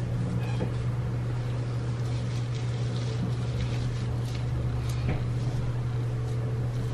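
A steady low hum, like a motor or fan running, with a few faint clicks and taps.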